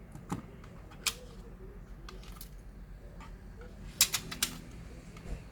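Scattered sharp clicks and taps of small plastic and metal laptop parts and tools being handled during disassembly, with a quick run of several clicks about four seconds in.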